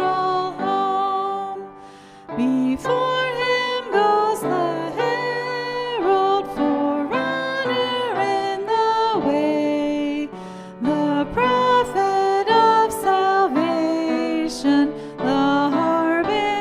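Hymn music: a melody moving in steps of held notes over accompaniment, with singing voices blended in.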